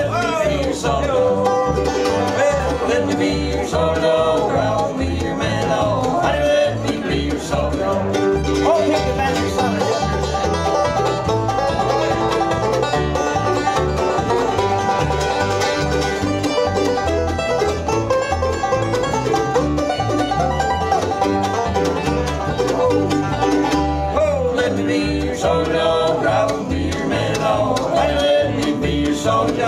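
Acoustic bluegrass band playing an instrumental break with no singing, banjo out front over acoustic guitar, upright bass and fiddle, in a steady driving rhythm.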